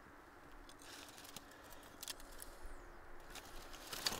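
Faint, scattered small clicks and crackles of a campfire being lit, with a short cluster of them near the end.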